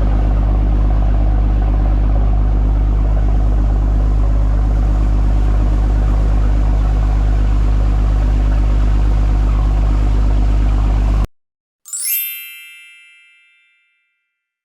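Boat engine running steadily under way, a low even hum that cuts off abruptly about eleven seconds in. Just after, a single bright bell-like chime rings and fades away.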